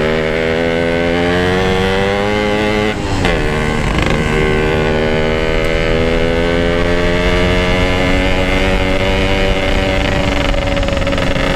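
Yamaha RX-King's two-stroke single-cylinder engine pulling under way, its pitch climbing for about three seconds. It dips briefly at a gear change, then climbs again and holds at a steady cruise.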